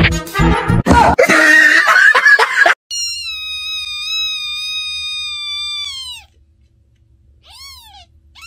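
Background music and a noisy stretch, then a newborn kitten crying: one long, high cry of about three seconds that drops in pitch at its end, followed by two short cries near the end.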